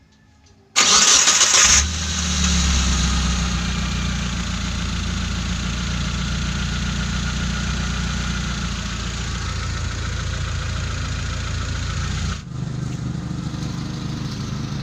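The rebuilt Mitsubishi T120SS engine is started: a sudden loud burst as it cranks and catches, then it settles into a steady run. Near the end the sound drops abruptly to a lower, quieter running note.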